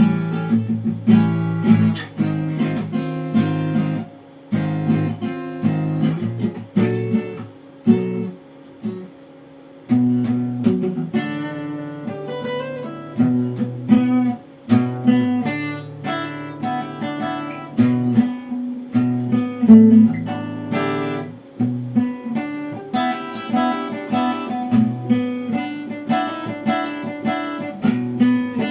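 Guitar music: chords strummed and picked, dropping to a few quiet notes for about two seconds about a third of the way in.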